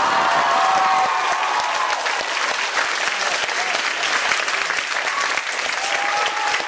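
An audience in a large room applauding steadily, with a few voices calling out over the clapping near the start and again near the end.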